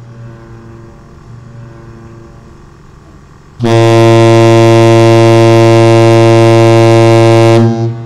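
Zollner ZM200/90 cruise-ship air horn, mounted inside a small car and sounding out of its open rear hatch. It gives one long, deep, very loud blast starting about three and a half seconds in, held steady for about four seconds and cutting off sharply. A much fainter tone of the same pitch hangs on before the blast.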